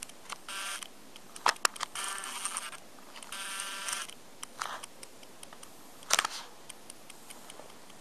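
Handling noise on a hand-held camcorder as it is moved about: a few sharp clicks, about a second and a half in and again near the six-second mark, and two short bursts of rustling and scraping in between.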